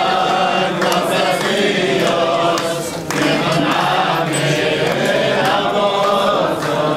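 A group of voices singing a chant-like song together, with hands clapping along.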